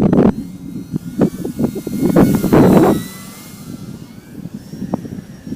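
Durafly Tundra RC plane's electric motor and propeller heard in flight as a faint, thin, high whine, with gusts of wind rumbling on the microphone, loudest in the first half.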